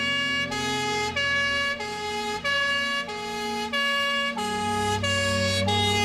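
Two-tone siren of an emergency vehicle, switching between a high and a low note about every two-thirds of a second. A low hum joins about four seconds in.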